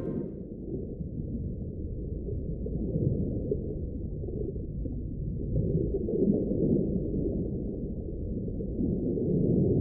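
Underwater ambience sound effect: a low, muffled wash of noise with nothing in the upper range, swelling and easing gently.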